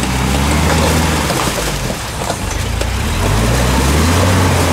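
UAZ Patriot SUV's engine working hard in low gear through deep mud ruts, its revs dipping about two seconds in and then climbing and holding high, with mud and water churning and splashing under the tyres.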